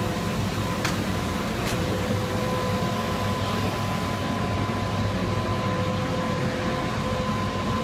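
Steady mechanical hum with a constant whine in it, from an unseen machine or engine running; a couple of faint clicks come in the first two seconds.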